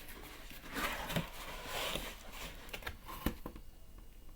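Rustling and scraping of a cardboard package being opened by hand, with a sharp click a little over three seconds in, after which it goes quieter.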